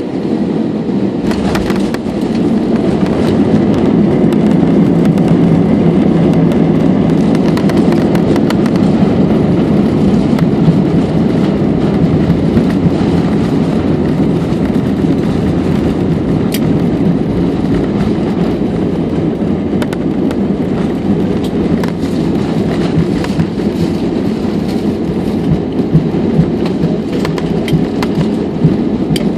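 Cabin noise of an Airbus A320 airliner on its landing roll: a loud, steady roar of the engines and the rumble of the wheels on the runway. The roar swells about two seconds in, then eases gradually as the aircraft slows, with occasional small clicks and rattles.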